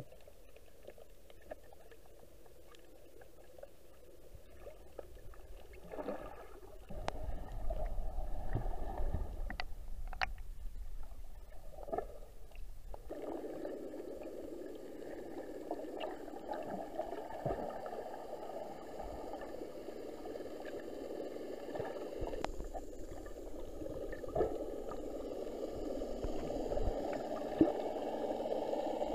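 Underwater ambience picked up by a submerged camera: muffled water noise with scattered clicks and a low rumble, turning into a steadier, louder hiss about halfway through.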